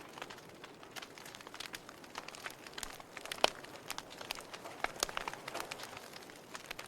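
Fire crackling: irregular sharp pops and snaps over a soft hiss, with the loudest pop about three and a half seconds in.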